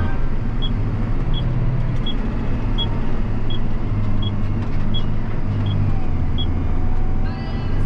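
John Deere 7250R tractor's six-cylinder diesel engine and drivetrain running steadily while pulling a loaded corn trailer, heard inside the cab. A turn-signal relay ticks about one and a half times a second, then stops a little over six seconds in.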